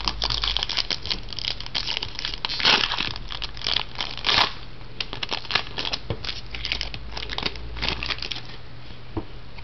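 Trading-card pack wrapper crinkling and tearing as a pack is opened, a dense run of short crackles that dies away near the end.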